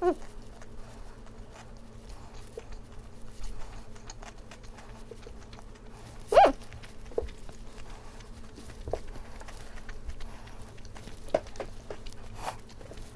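Close-up mouth sounds of eating anchovy gimbap: soft chewing smacks and small clicks, with one louder short sound about six seconds in, over a faint steady hum.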